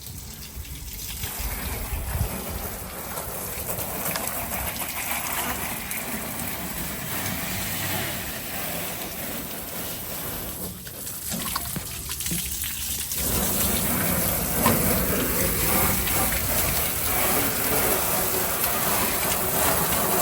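Water spraying from a hose, washing down the duck boat. The spray drops off briefly just after the start and again for a couple of seconds around the middle.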